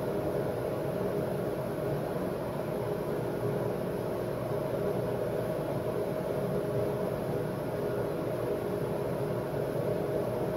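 A steady mechanical hum with an even hiss, unchanging throughout.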